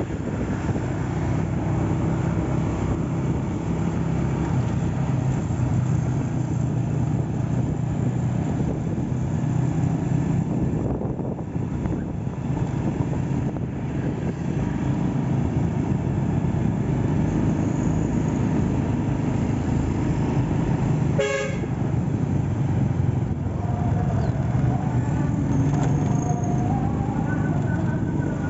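Honda Astrea Grand's single-cylinder four-stroke engine running steadily under way, with road and wind noise. A short horn toot sounds about two-thirds of the way through.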